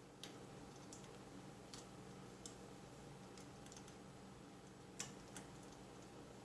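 Faint, scattered small clicks and ticks of small mount screws and the rail being handled as the screws are started into a Picatinny rail shotgun mount, the sharpest click about five seconds in, over a faint steady hum.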